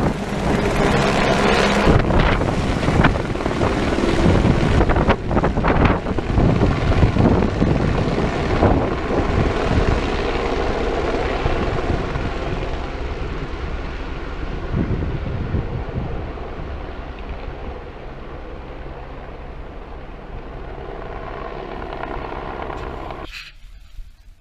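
Helicopter rotor and engine noise, loud as the machine lifts off with an underslung load on a long line, then fading steadily as it flies away. Cuts off sharply near the end.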